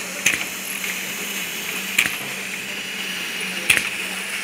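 Tie-on surgical mask machine running with a steady mechanical hum and hiss, and a sharp clack three times at an even beat, one for each working stroke of the machine.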